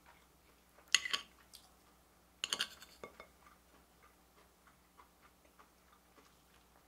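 Metal spoon scraping and clicking against a plate as it scoops curry and rice: two short bursts, about a second in and again about a second and a half later, then faint scattered ticks.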